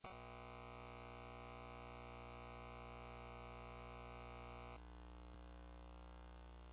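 Steady electrical hum and buzz, a fixed stack of unchanging tones with no game sound. Its tone changes abruptly about five seconds in, and a faint click follows shortly after.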